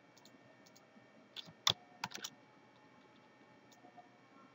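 Computer keyboard keystrokes: scattered soft key taps, with a louder run of a few keystrokes about one and a half to two and a half seconds in.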